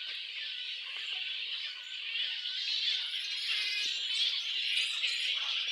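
Flying-fox colony: many high, squeaky, chattering calls overlapping into a constant din.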